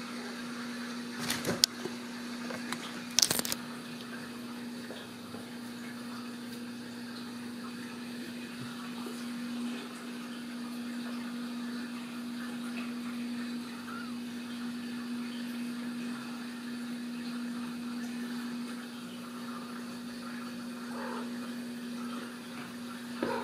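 A steady, even mechanical hum, like a household appliance or ventilation fan, under quiet room noise. Two short, sharp noises cut through it about a second and a half and about three seconds in.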